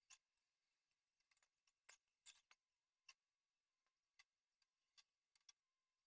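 Near silence with faint, irregularly spaced small clicks and ticks, about a dozen of them.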